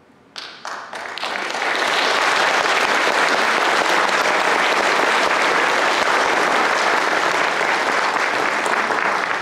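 An audience applauding: a few separate claps about half a second in, swelling within two seconds into full, steady applause.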